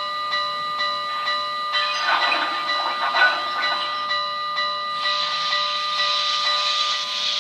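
Sound system of an MTH DCS HO-scale Southern Pacific 4-8-8-2 cab-forward steam locomotive model: a chime steam whistle held for about seven seconds, cutting off near the end, over hissing steam and soft, even chuffing as the engine gets under way.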